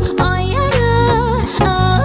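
Live pop band playing a passage without lyrics: a steady beat and bass guitar under a wavering lead melody.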